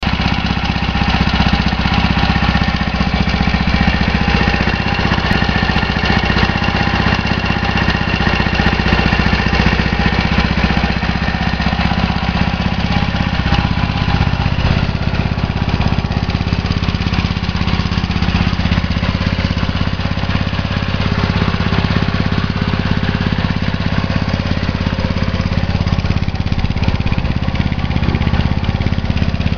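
1980 Yamaha SR500's single-cylinder four-stroke engine idling steadily through its exhaust, running on its first start after fourteen years laid up.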